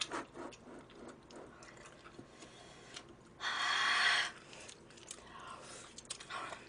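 Quiet eating sounds: chopsticks clicking against a plastic takeout container and chewing on rice cakes and meat. A little past halfway there is a louder hiss-like burst of noise lasting about a second.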